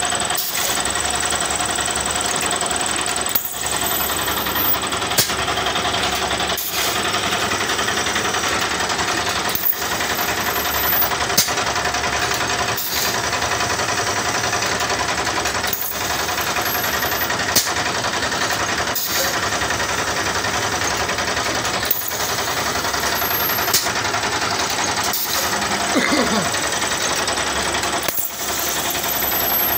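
A plastic bottle-making moulding machine running through its cycle: a steady mechanical rattle and hum, with a sharp clack about every one and a half seconds.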